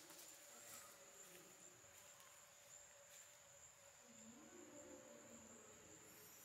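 Near silence: faint outdoor ambience with a steady, high-pitched insect drone.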